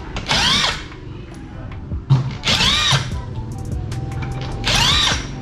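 Cordless electric impact wrench run in three short bursts on a wheel's lug nuts. Each burst is a rapid hammering rattle with a motor whine that rises and falls.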